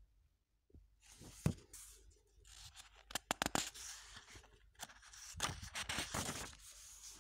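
Paper pages of a comic book rustling and crackling as it is handled, in irregular bursts with a few sharp clicks.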